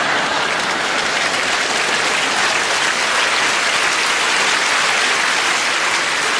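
Large audience applauding and laughing at a joke, a steady wall of clapping.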